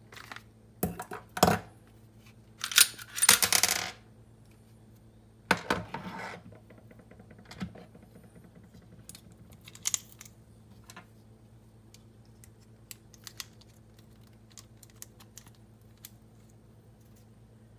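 A Taurus G2C 9mm pistol being unloaded: sharp metal clicks and clacks of the magazine and slide, with a loose cartridge clinking and rattling on a hard stone countertop. These sounds are loudest in the first six seconds and taper to a few light ticks.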